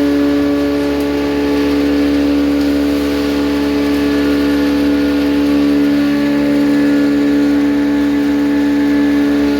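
Maize grinding mill running at a steady speed while milling maize into cooking flour: a loud, even machine drone.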